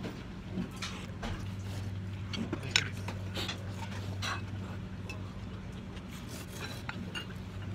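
Ramen shop room sound: a steady low hum under scattered small clinks of dishes and tableware, with one sharper clink about three seconds in.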